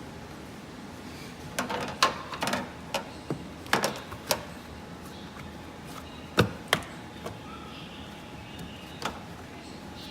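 Plastic clicks and knocks of a Tesla Model S cabin air filter housing and cover being handled and taken apart: a cluster of sharp clicks in the first half, two louder knocks a little past the middle, and one more near the end.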